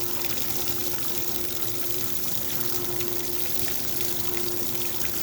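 1958 GE Mobile Maid portable dishwasher running its motor in reverse to pump out the rinse water in the power drain: a steady motor hum under the constant rush of water.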